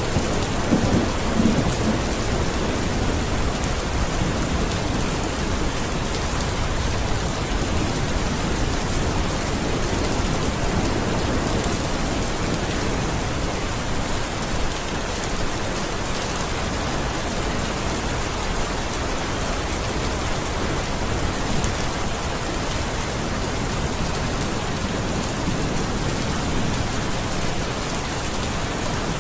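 Steady rain falling, with a low rumble of thunder dying away in the first couple of seconds.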